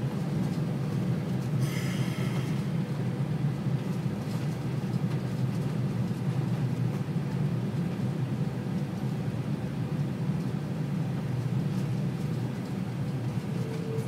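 Steady low rumble of engine and airflow noise inside an airliner cabin on final approach. A brief higher-pitched sound comes about two seconds in.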